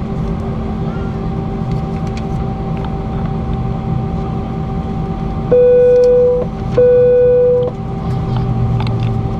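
Airbus A319 cabin noise while taxiing: a steady hum from the engines at low power. About five and a half seconds in, two loud, steady buzzing tones of about a second each, with a short gap between them, sound over it.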